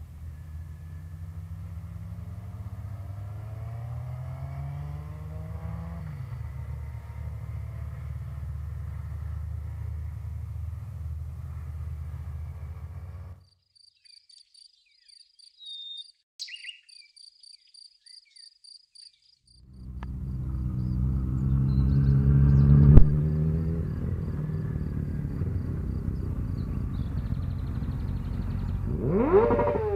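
Motorcycle engines running, their pitch rising as they rev and pull away. About a third of the way in the engines cut off, leaving a few seconds of near quiet with an insect chirping at a steady rapid rate. Then a motorcycle engine comes back loud and passes close near the end, its pitch dropping sharply as it goes by.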